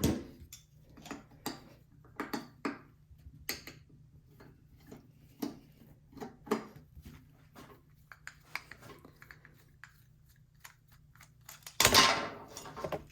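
Irregular light clicks and taps of a screwdriver and small metal parts as a snow blower carburetor is taken apart by hand. A louder, brief noisy handling sound comes near the end.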